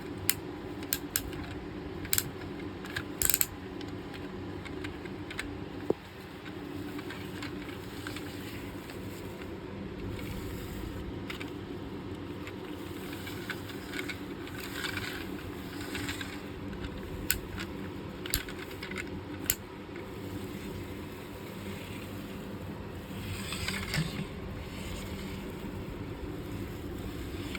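Small electric motor of a toy construction vehicle whirring steadily, with scattered sharp plastic clicks.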